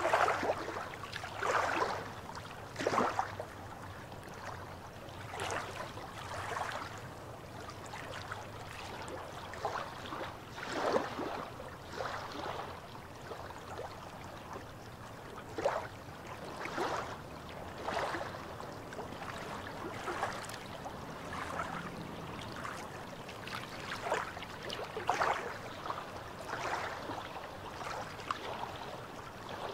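Small waves lapping and splashing against shoreline rocks, in irregular soft splashes every second or two.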